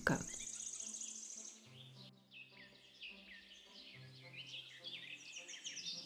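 Small birds calling: a fast high trill for the first couple of seconds, then a run of short falling chirps. Soft held low music notes sound underneath.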